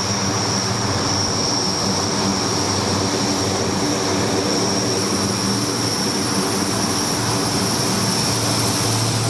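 C-130 Hercules turboprop transport taxiing past at close range, its four engines and four-bladed propellers running steadily. A high whine sits on top and a low hum underneath.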